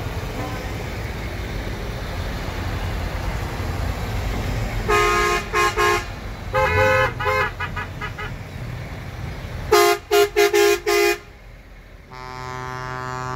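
Diesel lorries passing slowly in convoy with their engines rumbling, and their horns tooting in short blasts: three about five seconds in, a quicker run around seven seconds, and a loudest run of five around ten seconds. Near the end a longer, lower-pitched horn sounds.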